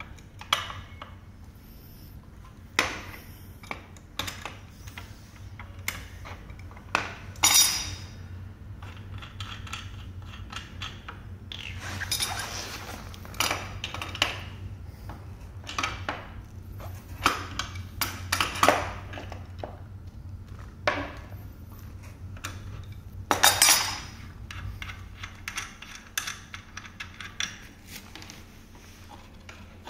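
Adjustable steel wrench working the front axle nuts of a scooter wheel: scattered metal clinks and knocks, with a few longer rattling stretches as the wrench and parts are handled. A steady low hum runs underneath.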